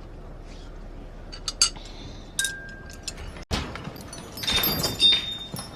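Several light clinks of tableware, one with a short ringing tone. After an abrupt cut, a louder rustling noise with a faint high ring.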